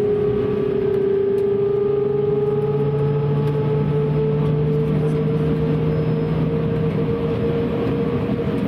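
Embraer 195's GE CF34-10E turbofan engines heard from inside the cabin over the wing during taxi: a steady hum with a whining tone that rises slowly in pitch, and a lower tone that comes in about two seconds in.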